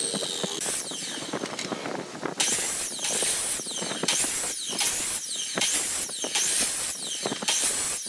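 Electric compound miter saw chopping a wooden strip into short pieces in a quick series of cuts, about two a second from about two and a half seconds in, each cut followed by the blade motor's falling whine. Before the cuts, quieter handling noise as the board is slid into place.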